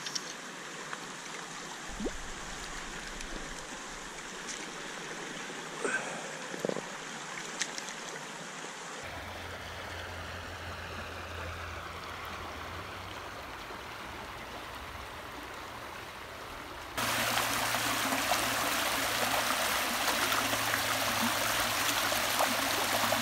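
Shallow, rocky trout stream running, with a few short ticks in the first half. About three-quarters of the way through it turns louder and fuller as the water rushes down a small rocky cascade.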